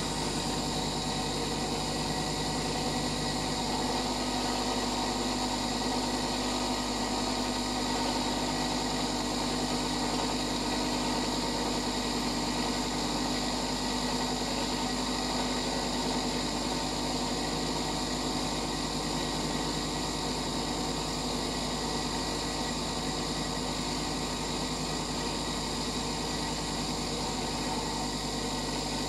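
Bench grinder running with a steady hum.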